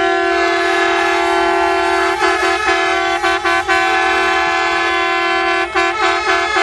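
A horn sounding one long, steady, loud note, with a few brief flickers about two to three and a half seconds in.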